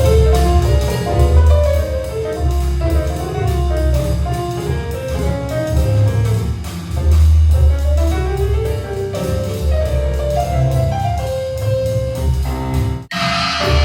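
Music played at full volume on a Harman Kardon Luna portable Bluetooth speaker: a melody line over heavy bass. It cuts out abruptly about 13 seconds in, and a brighter passage begins.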